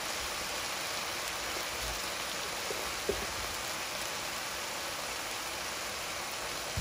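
Chopped bok choy, onion and chili frying in oil in a pan, a steady sizzle as the vegetables' water cooks off. There is one light knock about three seconds in.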